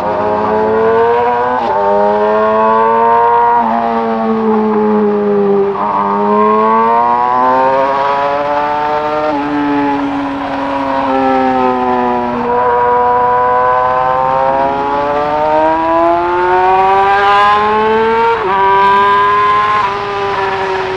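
2020 Yamaha R6's 599 cc inline-four engine running hard at road speed. Its note climbs under throttle and drops sharply at several upshifts, sags when the throttle eases off, then climbs again.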